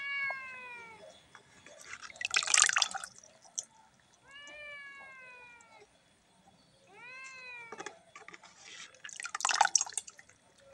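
A cat meows three times, each a drawn-out call that falls in pitch. Twice, water splashes and pours loudly as a plastic scoop of small fish is tipped into a basin of water.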